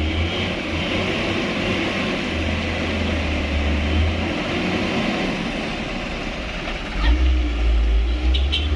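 Diesel engine of a loaded coal truck running under load, a deep rumble that swells twice, with a few short clicks near the end.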